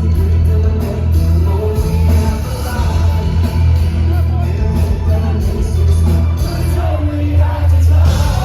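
Live rock band playing loud, with heavy bass and drums under a sung vocal line, heard through the PA in a concert hall.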